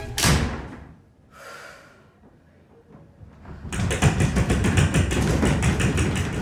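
A glass office door slams shut just after the start and rings out briefly. From about four seconds in, several people bang and slap their hands against the glass door in a dense, continuous clatter of thumps.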